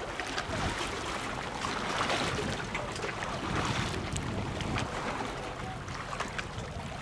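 Waterside ambience: wind on the microphone and the wash of waves, an even rushing noise with a few faint clicks.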